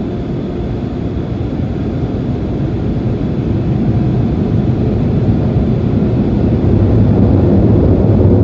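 Automatic car wash equipment working around the car, heard from inside the closed cabin: a steady, low rushing noise that slowly grows louder.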